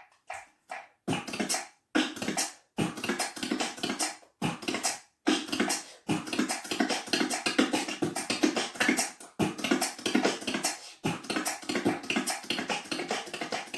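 Human beatboxing: a few sparse mouth-percussion strokes, then a fast dense run of clicks, snares and bass sounds from about a second in, broken by a few short pauses.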